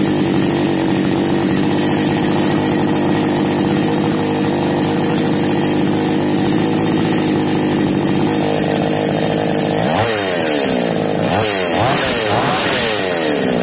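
Two-stroke chainsaw engine idling steadily. In the last few seconds it is revved in quick blips, each rising and falling in pitch. It now runs after a no-start was cured by turning in the low-speed (L) carburettor mixture screw.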